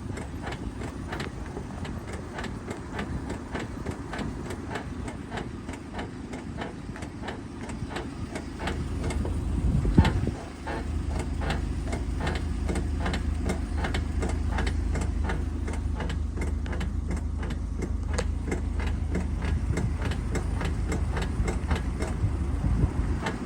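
A car making a rapid, regular clicking or ticking noise over a low rumble, with the rumble growing louder about ten seconds in. It is a persistent noise that the owner says stops only when the brake pedal is pressed.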